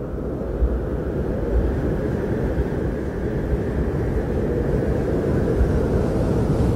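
Low, steady rumbling roar of sound-design noise with no clear pitch, slowly growing louder.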